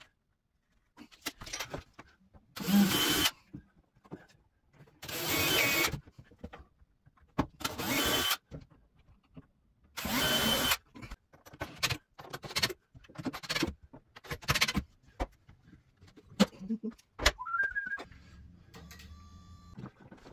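Cordless drill-driver driving screws to join cabinet face frames: four runs of about a second each, then several shorter bursts and clicks.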